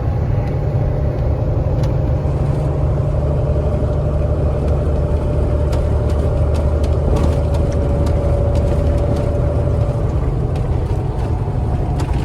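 KamAZ 4308 truck's diesel engine and road noise droning steadily inside the cab while driving. A steady whine runs over the drone and fades out about ten seconds in, with a few faint clicks.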